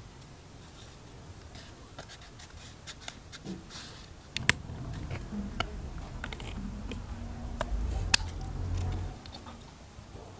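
Light crackles and clicks of clear plastic film being handled, then scissors cutting through the film and its paper template from about four and a half seconds in, with a few sharp snips.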